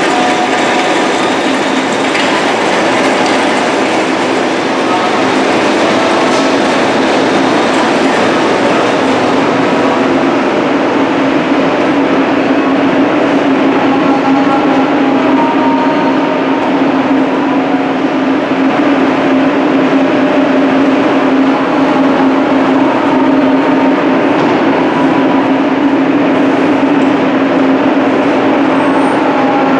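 Powder-coating booth's extraction fans running: a loud, steady rush of air with a low hum that grows a little stronger about halfway through.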